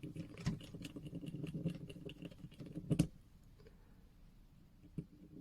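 Small metal file scraping in quick short strokes inside a watch case's squashed crown-stem tube, filing it out to free a jammed stem, with one sharp click about three seconds in.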